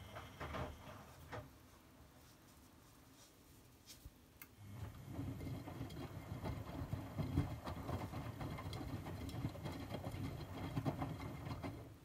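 Miele W2241 washing machine drum tumbling wet laundry in water, the churning and sloshing typical of the wash rhythm: one turn ends about a second in, a pause of about three seconds follows, then the drum turns again until it stops right at the end. This is the wash-and-heat stage of a 75 °C cotton/colours programme, the water still heating up.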